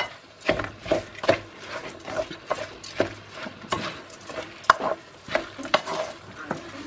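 Wooden spoon stirring and scraping a moist rice filling around an aluminium pot, in repeated strokes about two to three a second, with a sharp knock at the start.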